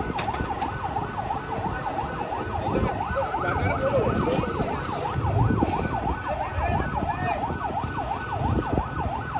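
Electronic siren in a fast yelp, its pitch sweeping up and down about three times a second without a break, over the low rumble of vehicle engines.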